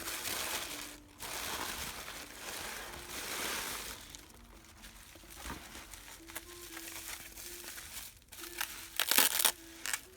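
Packaging crinkling and rustling as a parcel is unwrapped by hand, busiest in the first few seconds, with a loud burst of crinkling about nine seconds in.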